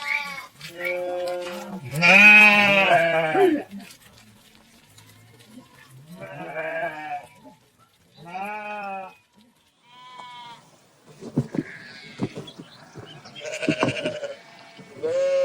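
Sheep bleating in a series of separate calls about a second long, with short pauses between them. The loudest and longest bleat comes about two seconds in.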